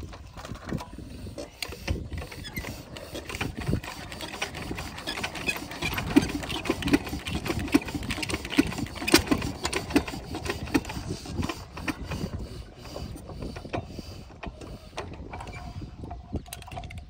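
Single-cylinder diesel water-pump engine being hand-cranked: clanking and knocking from the starting handle and the turning flywheels, with about two knocks a second through the middle, strongest there.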